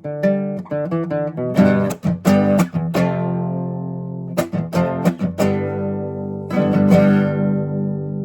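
Solo acoustic guitar (violão) in the southern Brazilian gaúcho style, playing picked notes and sharply strummed chords. Near the end it settles on a final chord that rings out.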